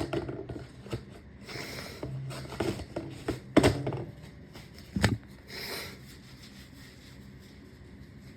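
A person sniffling and blowing the nose, with a tissue rubbing at the nose, in a string of short bursts over the first six seconds or so.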